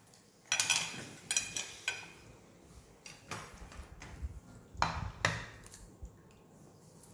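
A metal spoon clinking and scraping against a plate: several quick clinks in the first two seconds, then a few louder knocks around three and five seconds in.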